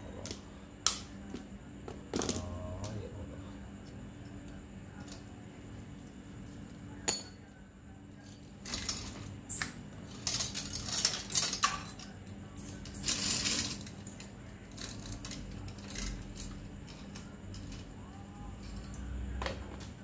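Small metal clicks and clinks from hands working on a bicycle's rear derailleur and cables. There are a few sharp single clicks, then a few seconds of busy rattling and clinking past the middle.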